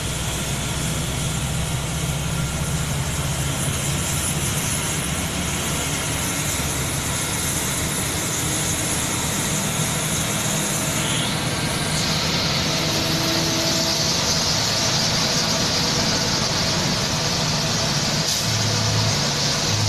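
Bus engine running steadily, heard from inside the cabin, with tyre and rain hiss that gets louder about twelve seconds in. A couple of short low pulses come near the end.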